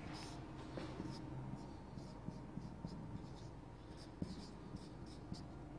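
Marker pen writing on a whiteboard: faint, short, irregular high-pitched strokes as lines are drawn.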